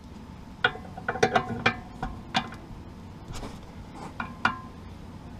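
Metal spanner clinking against the Honda S2000's front tie rod as it is fitted and turned to adjust the toe: a string of sharp, ringing metal clicks at irregular intervals.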